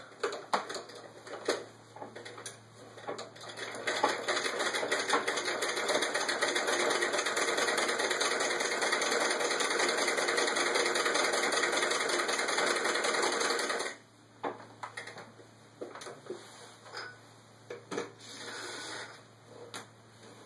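Antique Howe Model B treadle sewing machine stitching through fabric: a few slow, uneven stitches at first, then a steady, fast clatter of the needle mechanism for about ten seconds that stops suddenly, followed by scattered clicks.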